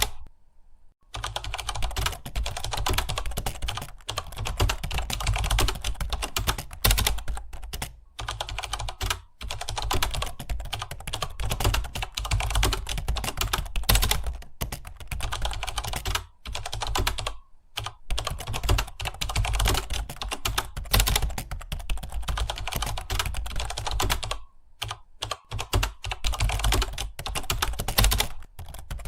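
Fast, continuous typing on a computer keyboard: a dense run of key clicks, broken by a few short pauses.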